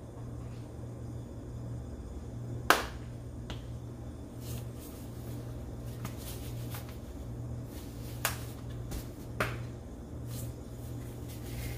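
Sharp plastic clicks of spice-shaker lids being snapped open and shut as seasonings go onto raw chicken, a handful of them with the loudest about three seconds in, over a steady low hum.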